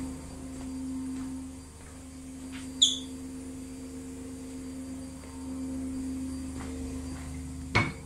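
A steady low hum that swells and fades, with a short high-pitched chirp about three seconds in and a sharp knock near the end.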